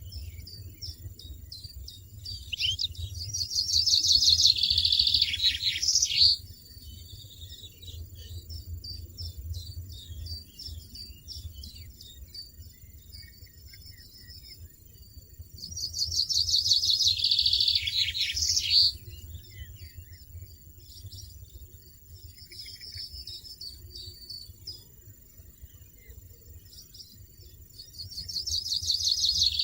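European goldfinch chicks begging: three bouts of rapid, high-pitched repeated calls, each swelling over two or three seconds and then cutting off suddenly. Fainter chirping fills the gaps between bouts.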